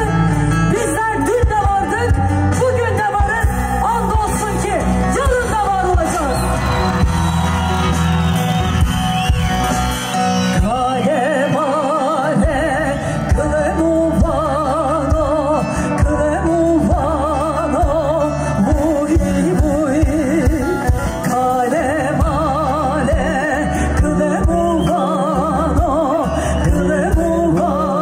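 Live band music with a singer, amplified, with a steady bass underneath and wavering, ornamented held notes in the melody.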